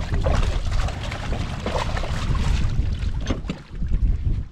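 Water splashing as a big grouper thrashes in a landing net at the side of a boat, with wind buffeting the microphone. Near the end a couple of knocks as the net is hauled up over the gunwale.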